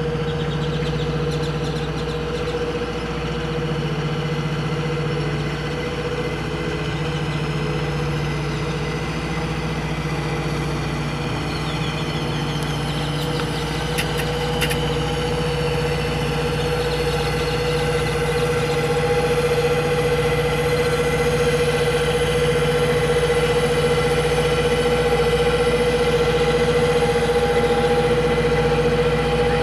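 Shrimp boat's engine running at a steady low speed, a constant drone that grows slightly louder in the second half.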